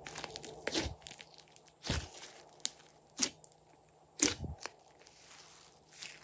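Hands squeezing and kneading a large glossy slime: a string of sharp sticky pops and clicks as trapped air is pressed out, the loudest four coming about a second apart.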